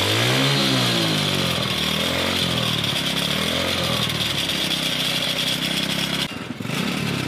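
Small single-cylinder four-stroke go-kart engine running, its throttle blipped twice so the pitch rises and falls, then settling back to a steady idle.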